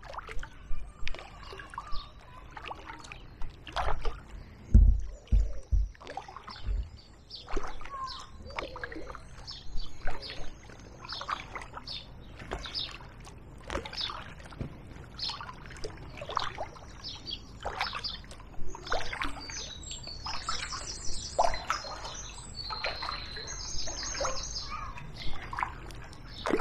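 Kayak paddle strokes dipping and dripping in the river, a splash every second or so, with a few low knocks around five seconds in. A bird sings bright chirping phrases near the end.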